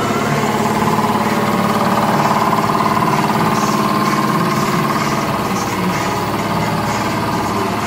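A motor running steadily with a loud, even droning hum.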